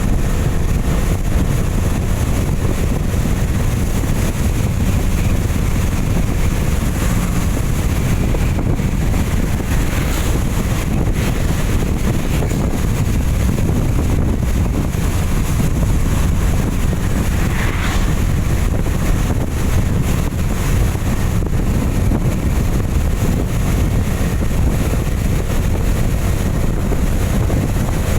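Steady low rumble of wind buffeting the microphone over the noise of a vehicle travelling on a rain-soaked road.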